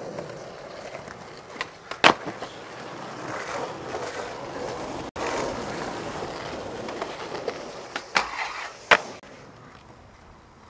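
Skateboard wheels rolling over a concrete sidewalk, with loud sharp clacks of the board about two seconds in and again near the end. The rolling breaks off for a moment about halfway through.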